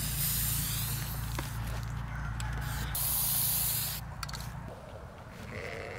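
Aerosol spray paint can spraying in bursts: a hiss at the start and a louder, steady hiss lasting about a second midway.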